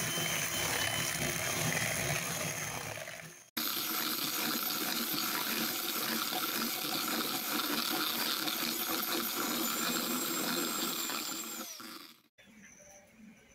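Electric hand mixer running steadily, its beaters whisking eggs into creamed margarine and sugar in a plastic bowl. The sound cuts out for an instant a few seconds in, then runs on, winds down with a falling whine and stops near the end.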